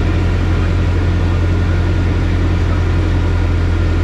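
Light aircraft's engine and propeller running at steady power, heard from inside the cockpit as a loud, even low drone.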